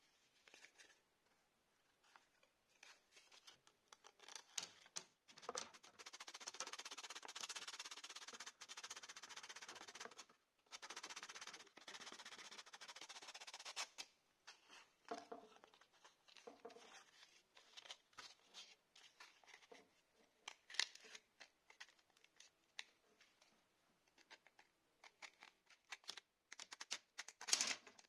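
Sandpaper scratching against a small arrow nock piece sanded by hand: a long run of back-and-forth rubbing, then short, scattered scratches and light taps as the paper and piece are repositioned.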